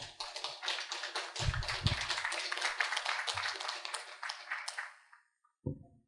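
Audience applauding, fading out about five seconds in.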